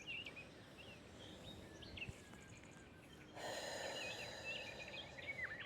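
Faint birdsong chirping, and about three and a half seconds in, a slow deep breath lasting about a second.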